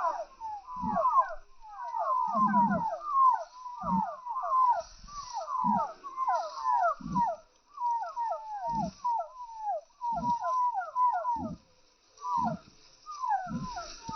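A group of chicks peeping with many overlapping short falling chirps, under short low clucks about once a second.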